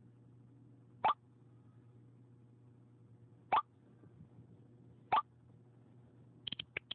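iPhone iMessage incoming-message sound, three short rising plops spaced about two seconds apart as messages arrive. Near the end comes a quick run of iPhone keyboard tap clicks.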